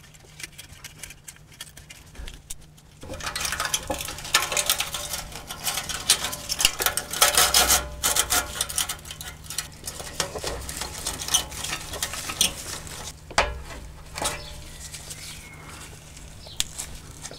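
Thin slotted sheet-metal exhaust repair clamp being bent and wrapped by hand around an exhaust pipe: a dense run of crinkling and clinking of its metal tabs, starting about three seconds in, with a few sharper knocks later. A steady low hum runs underneath.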